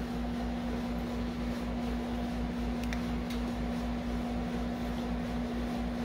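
Steady mechanical hum with a strong single tone and a low, pulsing throb beneath it, like a running fan or air-conditioning unit, with a couple of faint light ticks midway.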